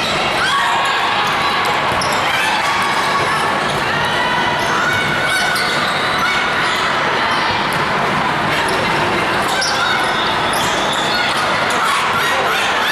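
Volleyball gym sounds: balls bouncing and being hit, with many short squeaks of shoes on the court floor, over voices echoing in a large hall.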